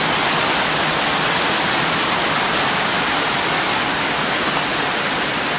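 Heavy rain pouring down, a steady, loud hiss.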